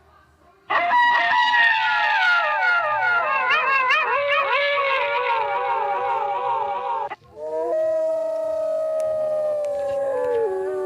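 A pack of wolves howling in chorus, many overlapping howls wavering up and down in pitch. After a short break about seven seconds in, one or two long howls are held, slowly falling in pitch.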